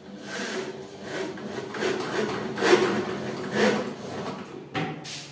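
Cordless drill driving screws into the wooden side of a kitchen wall cabinet to fix a gas-strut bracket. The motor whirs in several surges as the screws bite into the wood, and it stops shortly before the end.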